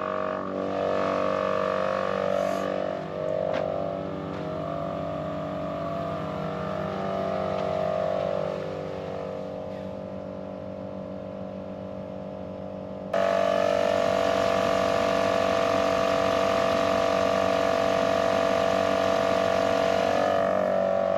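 Morrflate Ten Six portable air compressor running steadily under load while inflating a tire, a constant motor drone. About thirteen seconds in it suddenly becomes much louder and hissier.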